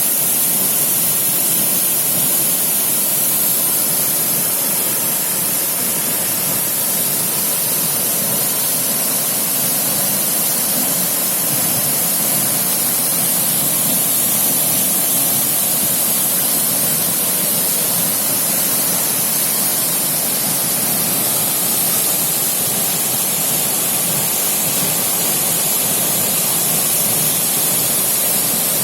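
Small waterfall pouring into a stream: a loud, steady rush of falling water.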